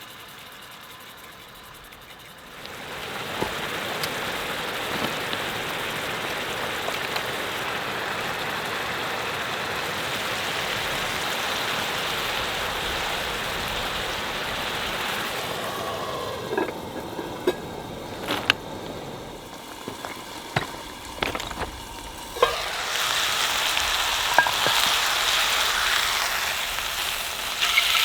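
Steak sizzling in a hot, olive-oiled skillet over a propane bottle-top burner, the sizzle starting suddenly about two and a half seconds in as the meat goes into the pan. Partway through the sizzle dies down for several seconds, with a few sharp clicks, then comes back a little louder near the end.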